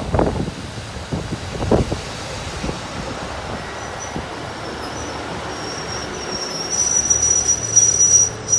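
JR Central KiHa 75 diesel railcar pulling into the platform: two heavy thumps from the wheels in the first two seconds, then steady rolling noise. Near the end a high brake squeal starts as it slows to a stop.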